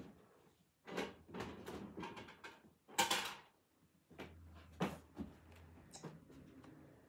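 Handling noise of things being rummaged through and moved: a string of knocks and rustles, the loudest a harsh scrape about three seconds in.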